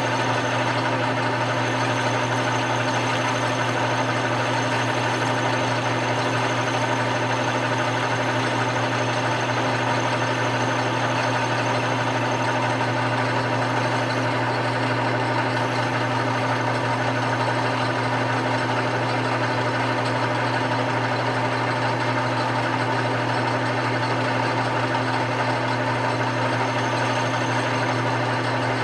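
Grizzly metal lathe running steadily under power with a constant motor-and-gear hum while a gear-cutting pass is taken on a small spur pinion.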